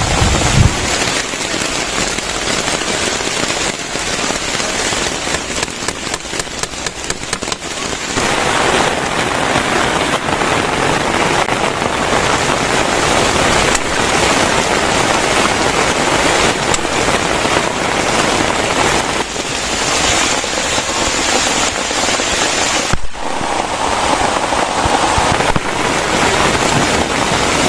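Heavy rain pouring steadily, as a dense hiss, with a close crackling patter of drops on a surface between about five and eight seconds in.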